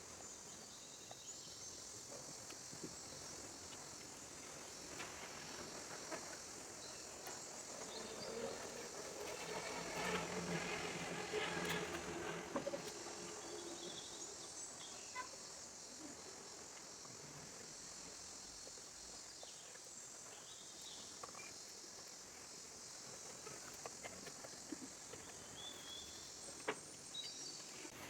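Faint outdoor ambience: a steady high insect chorus, with scattered light clicks. There is a louder stretch with a low hum about a third of the way in.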